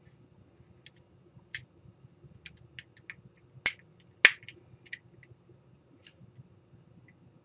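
Scattered light plastic clicks as a small pry tool works the release clips of a plastic touch dimmer control's housing, with two sharp, louder snaps a little past halfway as clips give.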